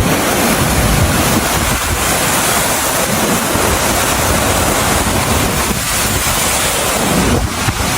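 Strong blizzard wind blowing hard across the microphone: a loud, steady rushing noise with an uneven low rumble.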